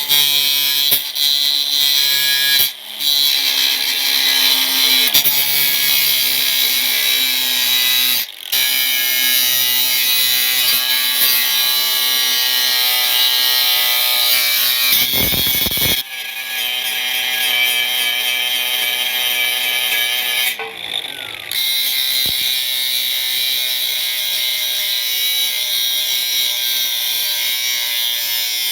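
Power tool, most likely an angle grinder, grinding the rusted steel heat shield and pipe of a car's exhaust down to bare metal. The tool's whine sags and recovers under load, and it stops briefly a few times, about 3, 8 and 16 seconds in.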